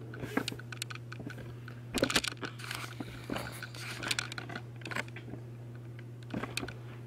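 Handling noise from a camera being moved and re-aimed: scattered clicks, knocks and rustles, the busiest about two to four seconds in, over a steady low hum.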